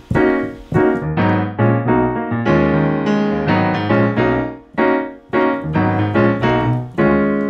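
Digital piano playing a quick run of full chords, about three a second, in a jazz 2-5-1 style chord sequence.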